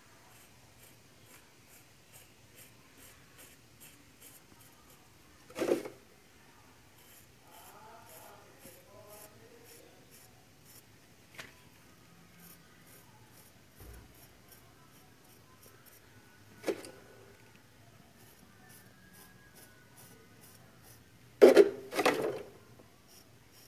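Faint scraping of a knife tip scoring lines into soft cement mortar, broken by a few short, sharper knocks or rustles, two of them close together near the end.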